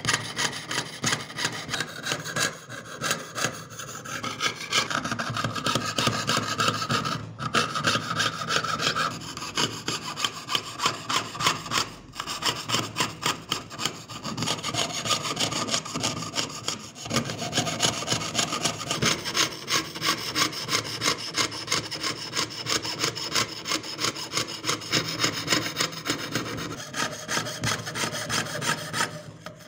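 Jeweler's saw cutting through engraved sheet metal with quick, even back-and-forth strokes, the thin blade rasping and the sheet ringing. The cutting stops briefly a few times.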